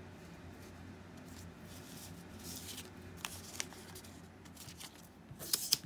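Small paper slips being picked up and handled over a cloth playmat: faint rustling with a few light clicks, and a quick cluster of sharper paper clicks near the end.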